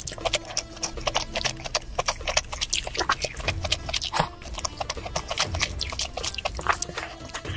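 Close-miked wet chewing and lip-smacking of a mouthful of spicy noodles, a dense run of quick mouth clicks.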